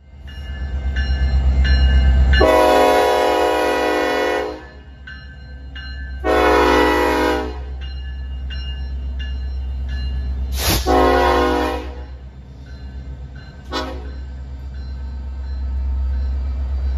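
BNSF 9129 diesel locomotive sounding its multi-chime air horn over the low rumble of the moving train: one long blast, two shorter blasts and a brief final toot.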